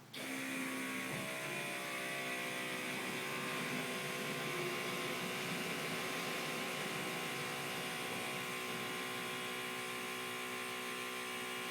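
A motorcycle air-suspension kit's small electric compressor switches on just after the start and runs steadily as a humming whine, pumping up the air shocks to raise the bike.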